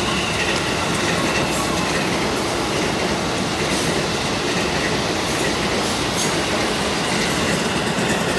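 KRL Jabodetabek electric commuter train passing close by: a steady rumble of wheels on the rails with a faint high whine over it.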